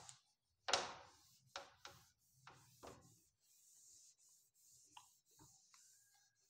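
Whiteboard eraser wiping marker ink off a whiteboard: a few short, faint rubbing strokes, the first, about a second in, the loudest, with only small faint scrapes after about three seconds.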